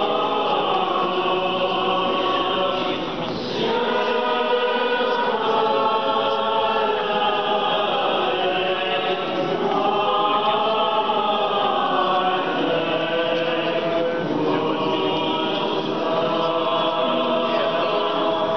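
Orthodox church choir singing unaccompanied chant, several voices holding long, slowly moving notes without a break.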